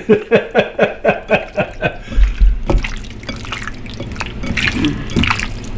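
Raw chicken pieces being mixed by hand with seasonings in a bowl: wet squelching and squishing, in a quick run of about five strokes a second at first, then slower, irregular squishes with a soft thump.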